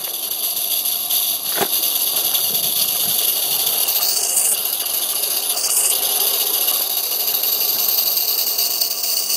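Live-steam garden-railway locomotive running along its track: a steady hiss of steam that shifts in tone about four seconds in, with a single sharp click about a second and a half in.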